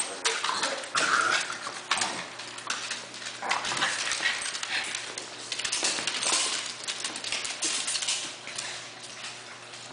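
Two small dogs play-fighting on a hardwood floor: dog whines and yips mixed with irregular scuffling and claws scrabbling on the boards.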